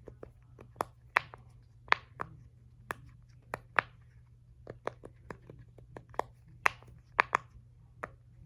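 Mini Christmas-tree fidget toy being pressed and handled: an irregular series of sharp pops and clicks, about two or three a second.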